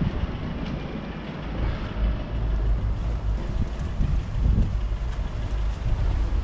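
Low rumble of street traffic mixed with wind buffeting the microphone.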